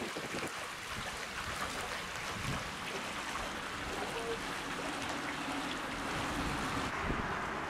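Water spilling over a small weir gate in a narrow canal, a steady rushing splash.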